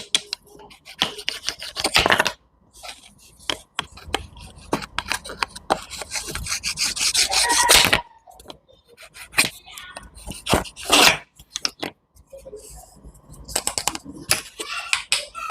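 Knife cutting fruit and vegetables against a wooden cutting board: a run of cuts and knocks, with a longer sawing cut that builds up midway.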